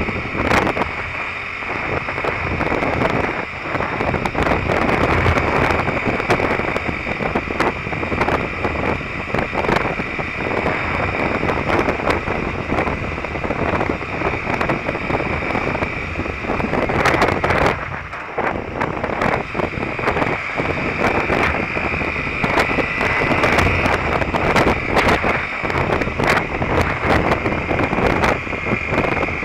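Wind buffeting the microphone of a motorcycle-mounted camera while riding, over the steady running of a Derbi Terra Adventure's 125cc single-cylinder engine at cruising speed.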